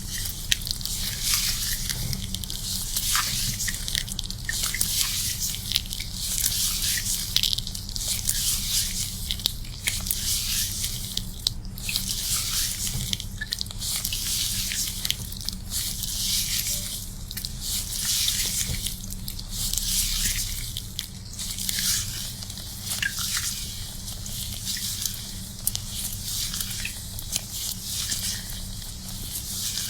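Hair being washed: a wet, hissing scrubbing of soaked hair and lather against the scalp that swells and fades in a loose rhythm, over a steady low hum.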